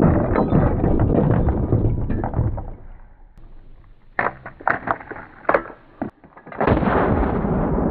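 Slowed-down gun-handling sounds: a heavy clatter as a lever-action rifle is set down and a side-by-side double-barrel shotgun picked up, then several sharp clicks as shells go into the opened barrels, and a second heavy clatter about two-thirds of the way through that fades slowly.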